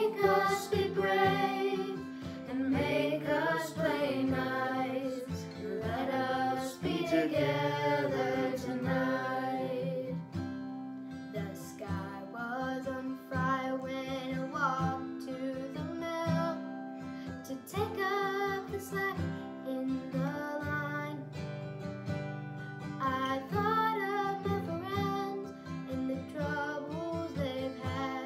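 Acoustic guitar played with a woman and children singing along. The singing is fullest for the first ten seconds or so, then quieter and in shorter phrases.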